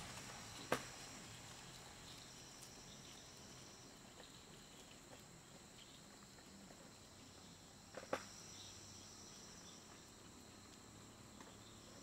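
Faint steady chirring of a cricket and insect chorus, high-pitched and unbroken, with two sharp clicks standing out, about a second in and about eight seconds in.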